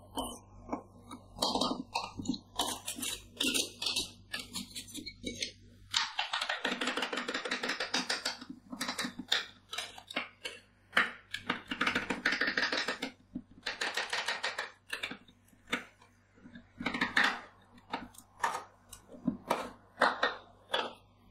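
Two metal spatulas chopping and scraping frozen sports-drink ice on a steel cold plate for rolled ice cream: rapid clacks of the blades on the plate with longer scraping runs in between.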